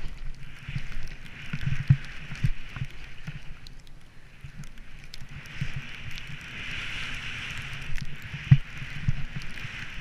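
Skis running through fresh powder snow, heard on an action camera worn by the skier: a rushing hiss of snow and wind that swells and fades with the turns, with irregular low thumps and knocks from the skier's body and gear, the hardest one late on.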